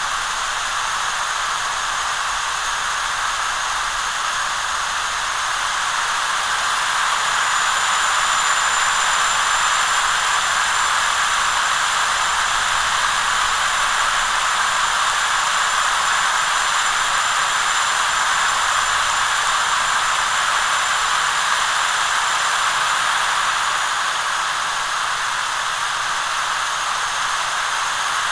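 Sound decoder's recording of a Siemens SC-44 Charger's Cummins QSK95 diesel prime mover running under throttle, played through an N scale model locomotive's tiny speaker: a steady hissing roar with almost no bass, growing louder about six seconds in.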